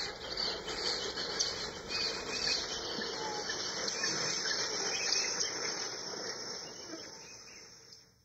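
Spooky sound-effect recording of a swarm of small creatures chittering and squeaking, a dense high-pitched chatter that fades out near the end.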